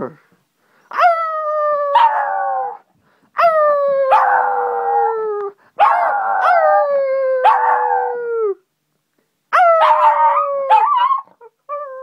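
Shih Tzu puppy howling to greet its owner home: four long howls, each one to three seconds, starting sharply and falling in pitch, with a rougher edge in parts.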